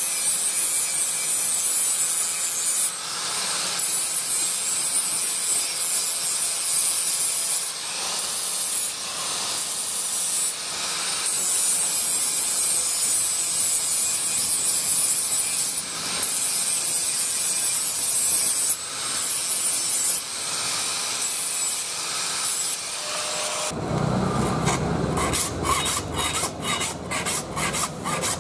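Angle grinder's abrasive disc grinding the curved steel blade of a billhook, a steady high hiss broken briefly here and there as the disc lifts off the metal. About 24 seconds in it gives way to a hand file rasping over the blade in quick repeated strokes.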